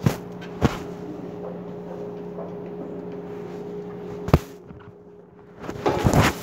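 A few sharp knocks, then a loud burst of rustling and scraping near the end, over a steady low hum.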